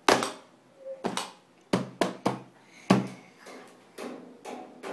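A series of sharp, irregularly spaced knocks, about eight in a few seconds.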